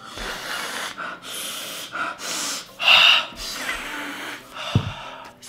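A man sniffing hard at the soles of a new pair of sneakers: several long, noisy breaths in a row through the nose, with a short knock near the end.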